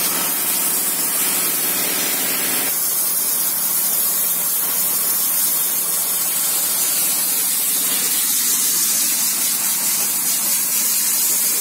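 Handheld air spray gun hissing steadily as it sprays the car's underbody and wheel well. A faint hum sits under it for about the first three seconds, then drops away.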